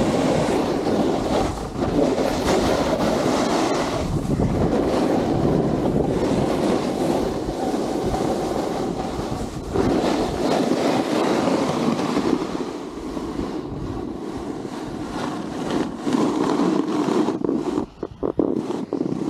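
Wind buffeting the action camera's microphone over the rushing scrape of edges sliding and carving on snow during a fast descent of a ski run. The noise surges and eases unevenly and drops out briefly near the end.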